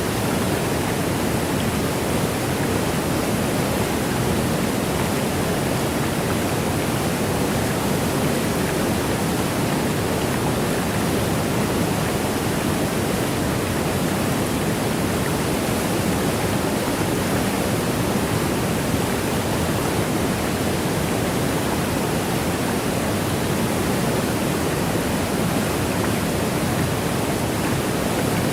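A waterfall: cascading water giving a steady, even rush that does not change in level.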